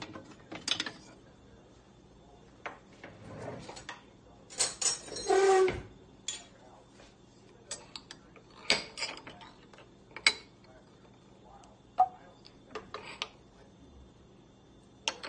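Kitchen handling noises as butter is put into a nonstick frying pan with a wooden spatula: scattered clicks, taps and knocks of utensils and containers, with one longer, louder noise lasting about a second around five seconds in.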